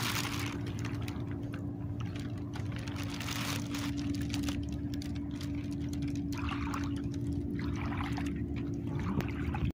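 Shallow sea water sloshing and trickling in repeated washes, over a steady low hum.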